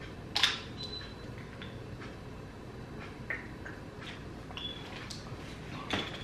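Plastic water bottle being handled: a sharp crackle as the cap is twisted open about half a second in, then small plastic clicks and squeaks while drinking, and a knock as the bottle is set down on the wooden table near the end.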